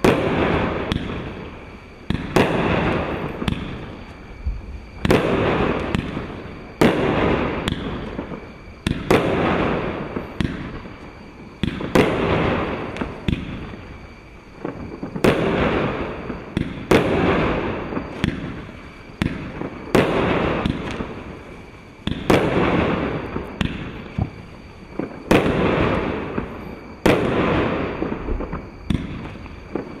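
Europyro EP-5002A 49-shot fireworks battery firing shot after shot: a sharp report about every second or two, each followed by a hiss that fades over a second or so.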